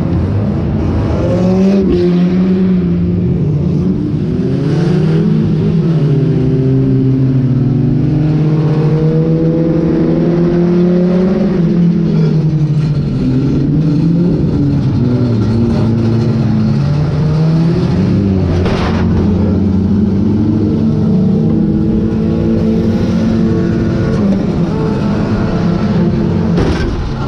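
Banger racing car's engine heard from inside the stripped cab, revving up and down as the car is driven hard, with a few sharp bangs of contact.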